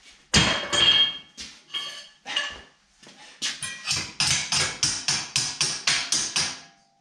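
Hammer striking sheet metal: a few scattered blows, then a steady run of about five quick blows a second, each with a short metallic ring.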